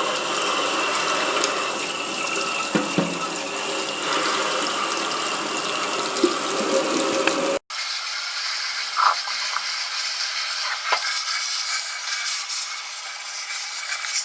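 Tap water running steadily over a dishwasher's removed screen filter as food particles are rinsed off it, with a few short knocks. About halfway through the sound cuts out for an instant and comes back thinner.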